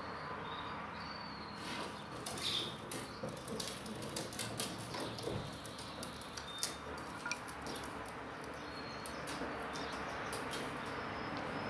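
Scattered light clicks and ticks of a small metal chainsaw carburetor being turned over in the hand, over a steady background hiss.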